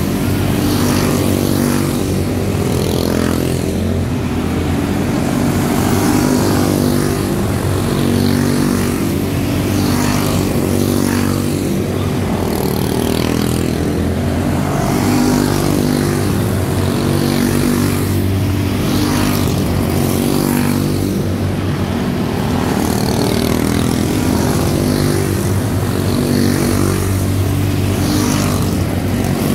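Several quarter midget race cars with Briggs & Stratton Animal single-cylinder engines running hard together. Their overlapping buzz holds steady, its pitch shifting up and down as the cars lap.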